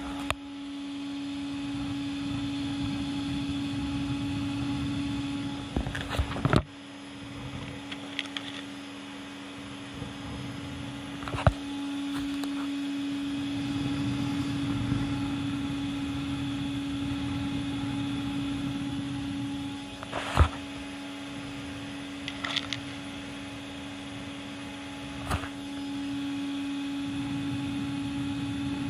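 A vacuum cleaner running steadily with a constant hum and rushing air, supplying the draft for a miniature clay rocket stove burning toothpicks. A few sharp clicks and knocks are heard, the loudest about 20 seconds in.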